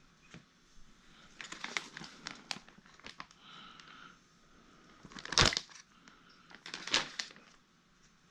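Crinkling, crackling handling noises with scattered sharp clicks as the specimens are worked on by hand, rising to two louder sharp crackles, one about five seconds in and another a second and a half later.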